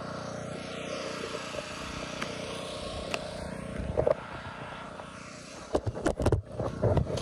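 Steady loud machine noise, a constant mechanical racket that runs on without a break. Flip-flop footsteps scuff and knock on a stump and dirt about four seconds in and again near the end.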